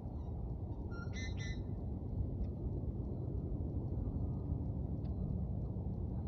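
A bird gives a short two-note call about a second in, over a steady low outdoor rumble.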